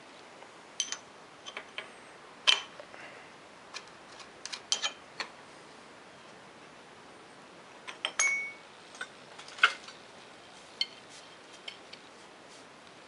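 Scattered sharp clinks and knocks of steel on steel as a machined steel clamp piece is loosened from a metal shaper's vise with a wrench and handled. One clink about eight seconds in rings briefly.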